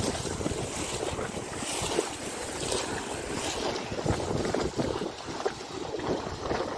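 Several horses walking through shallow water, their hooves splashing irregularly with each step.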